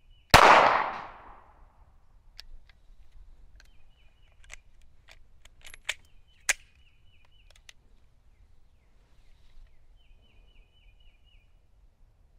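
A single shot from a SIG P320 Spectre Comp 9mm pistol just after the start, its report dying away over about a second and a half. A string of sharp metallic clicks and clacks follows, two of them louder, as the pistol, which keeps jamming, is handled with no further shots.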